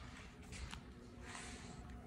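Quiet room tone with a faint rustle and a single light click a little under a second in.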